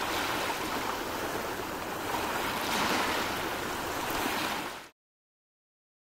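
Ocean surf: a steady rush of waves washing, which cuts off abruptly to silence about five seconds in.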